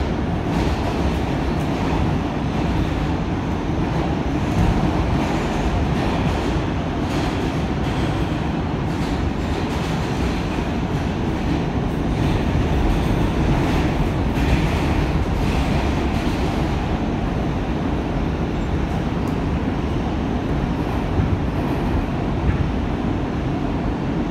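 Inside an R160 subway car running at speed through a tunnel: a steady rumble of wheels on rail, broken by scattered clicks and knocks over rail joints.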